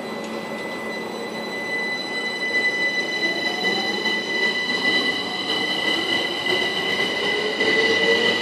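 Southern Class 377 Electrostar electric train pulling away, with a steady high whine and a lower tone climbing steadily in pitch as it gathers speed.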